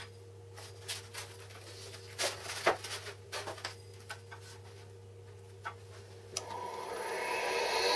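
Light clicks and knocks of an aluminium slat and paper templates being handled and set down on a wooden template board, over a low steady hum. Near the end a rough scraping noise comes in and rises steadily.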